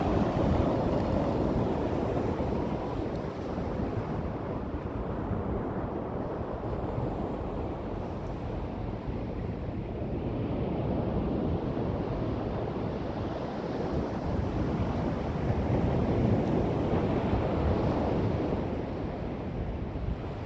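Ocean surf breaking and washing up on the beach, with wind buffeting the microphone. The sound swells and eases in slow surges.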